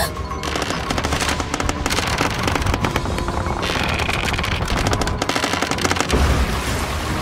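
Cartoon sound effect of a house's walls and ceiling cracking under the storm: a dense run of crackling snaps over a low rumble, with background music.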